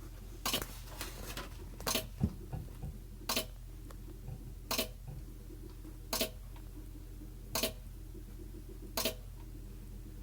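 GE refrigerator clicking in the back: sharp single clicks repeating evenly, about one every 1.4 seconds, over a steady low hum. The clicking began right after ice was dumped from the ice maker's bin and the bin was put back.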